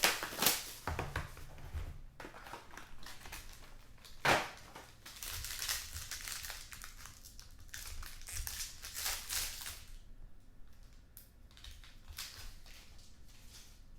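Crinkling and tearing of packaging as trading-card packs are opened and the cards handled: irregular rustles and crackles, one louder crackle about four seconds in, growing quieter near the end.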